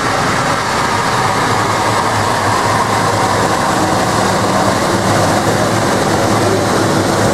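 Embraer 195's two GE CF34-10E5 turbofan engines running at taxi power as the jet taxies past, a steady rumble and hiss that holds an even level throughout.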